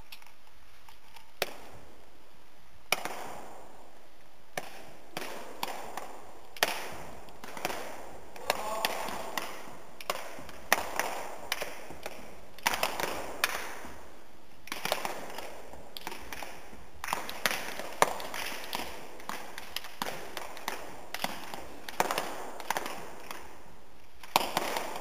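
Irregular sharp slaps and stamps from wushu athletes training, with hands striking feet and bodies and feet landing on the floor, echoing in a large hall. They come about once or twice a second.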